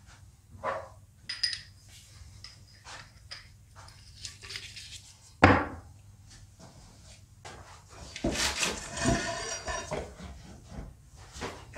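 Metal clinks and knocks of workshop parts handling as the motorcycle's front axle is taken out and the front wheel removed from the forks. A single loud knock about five and a half seconds in, as of the steel axle set down on the wooden bench, and a stretch of scraping and rattling about eight to ten seconds in as the wheel is lifted out.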